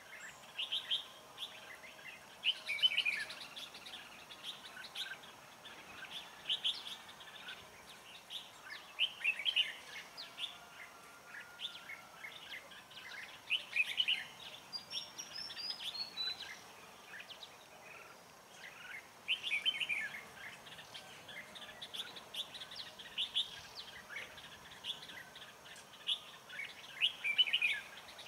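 Red-whiskered bulbuls singing short, bright chirping phrases every few seconds: the challenge song of a caged decoy bird at a trap, with a wild bulbul close by.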